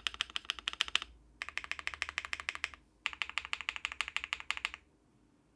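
Akko MonsGeek M1W mechanical keyboard with HMX Cheese switches, a polycarbonate plate and doubleshot ABS keycaps, typed on fast: three runs of rapid keystrokes with brief pauses between them, stopping about five seconds in.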